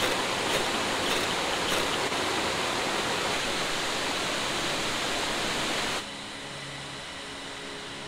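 Steady rush of a stream, with three short scrapes of a ferro rod throwing sparks into dry grass tinder in the first two seconds. The rush cuts off suddenly about six seconds in, leaving a quieter steady background.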